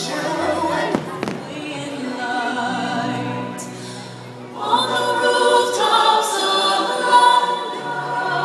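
Fireworks show music: a choir singing long held notes over orchestral accompaniment, swelling louder about halfway through. A single sharp firework pop comes about a second in.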